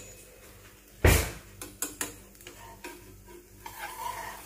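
Utensils handled around a dosa pan on the stove: one heavy knock about a second in, then a few light clicks and knocks, over a faint sizzle of batter cooking on the hot pan.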